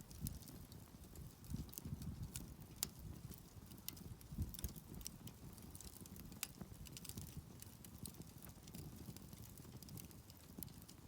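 Quiet campfire crackling: scattered sharp pops and snaps over a low, rough rumble of burning wood, with a few soft knocks in the first half.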